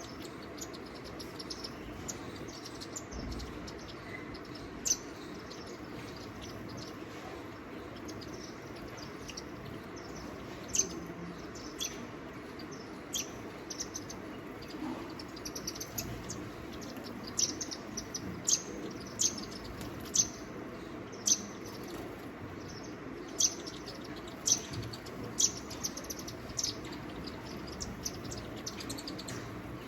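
Small birds giving short, sharp, high chirps, a few at first and then many in quick succession through the second half, over a steady background hiss.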